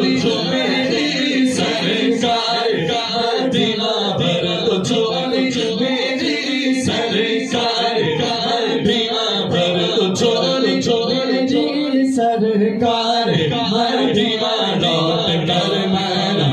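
A man singing a naat, an Islamic devotional song in praise of the Prophet Muhammad, into a microphone with no instruments, in long, drawn-out, ornamented phrases.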